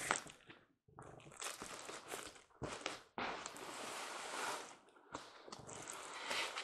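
Cardboard and packing material rustling and crinkling as a shipping box is unpacked by hand, in irregular bursts with short pauses and a few sharp knocks.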